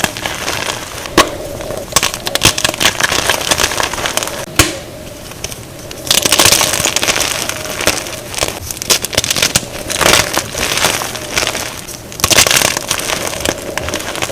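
Blocks of gym chalk being crushed and crumbled, played at double speed: a continuous crunchy crackling with sharp snaps as pieces break. There are several louder, denser bursts of crunching, about six seconds in, around ten seconds, and again near the end.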